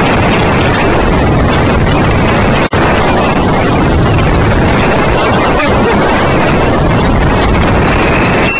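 Loud, steady wind rush buffeting the onboard microphone of an open amusement-ride capsule as it flies through the air. The sound cuts out for an instant between two and three seconds in.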